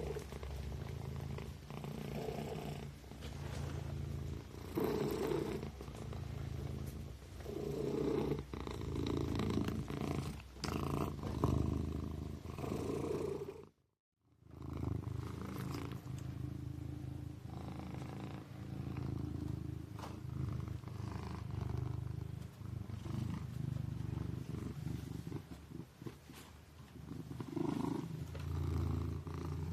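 Sleeping kitten purring, a low, continuous purr that swells and eases every second or two. It cuts out for about half a second about halfway through.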